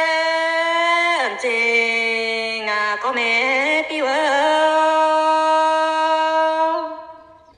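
A single voice singing a traditional Iu Mien folk song in a slow, chant-like style. It holds long notes, slides down about a second in, wavers through ornamented turns, then holds again and fades out near the end.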